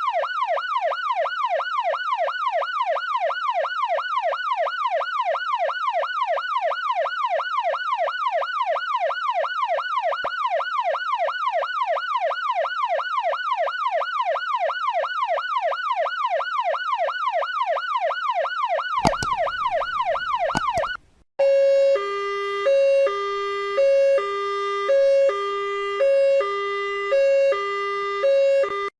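Electronic emergency-vehicle siren in a fast yelp, the pitch sweeping up and down about three times a second. After about 19 seconds it breaks off with a short burst and a brief gap. It then gives way to a two-tone hi-lo siren alternating between two pitches about once a second.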